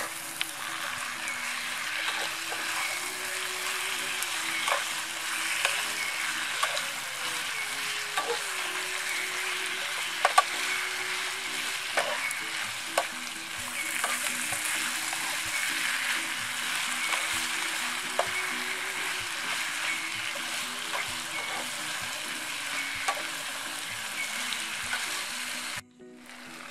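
Duck pieces sizzling in oil in a frying pan while being stirred, with the spatula scraping and knocking against the pan now and then. The sizzle cuts out briefly near the end.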